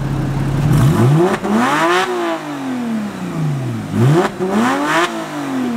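Porsche Cayman engine through a home-welded straight-pipe exhaust, mufflers cut off and no tips fitted, idling and then revved twice. Each rev climbs and falls back in pitch over about two seconds, the second one falling away near the end.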